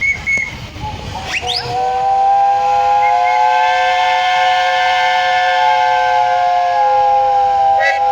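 Several steam engine whistles blowing together in a whistle up, over a hiss of steam. Short toots and a whistle rising in pitch as it opens give way, about a second and a half in, to a chord of steady whistle tones held for about six seconds, which wavers near the end.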